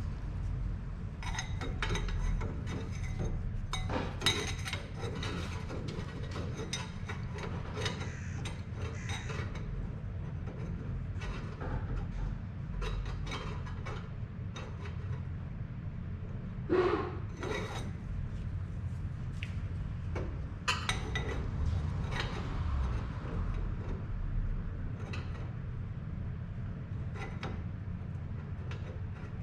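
Stainless steel exhaust pipe pieces being handled in the workshop: irregular clinks, knocks and scraping of metal on metal over a steady low hum.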